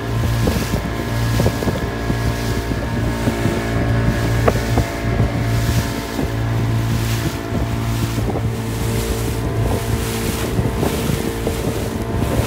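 A small open boat's engine running steadily under way, with wind buffeting the microphone and the hiss of water along the hull.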